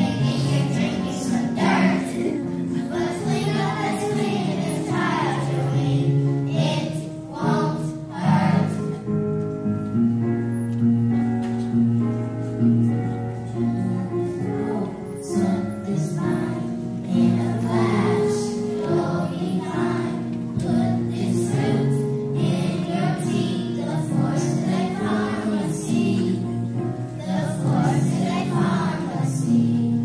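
Children's choir singing a song with instrumental accompaniment.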